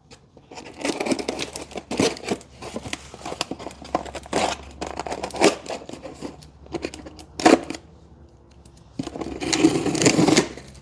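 Packaging of an awning bracket kit being opened and rummaged through: tearing and crinkling rustle with sharp clicks of parts being handled. It goes quiet for a moment past the middle, then a louder rustle comes near the end.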